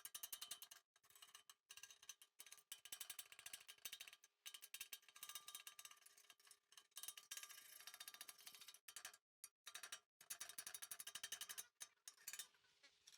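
Faint, rapid crackling of a MIG welder laying a bead on the steel bumper, a dense run of tiny ticks that drops out briefly several times.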